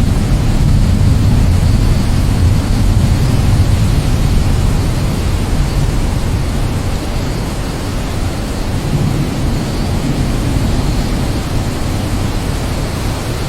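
Steady rain, an even dense hiss with a deep rumble underneath that swells in the first few seconds and again near the middle.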